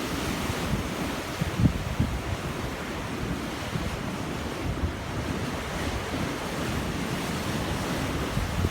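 Surf on a sea made rough by a typhoon, waves washing in steadily, with wind buffeting the microphone in a few low thumps about two seconds in.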